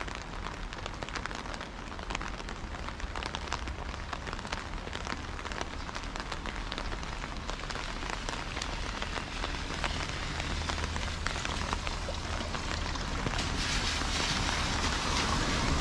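Steady rain with many small drops pattering close by. Near the end a car passes, its tyres hissing louder on the wet road.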